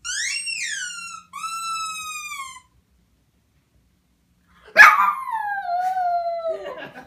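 Puppy howling in long, high, siren-like calls: two drawn-out calls, the first rising then falling and the second held level and sagging slowly. After a pause of about two seconds comes a louder call that starts sharply and slides steadily down in pitch.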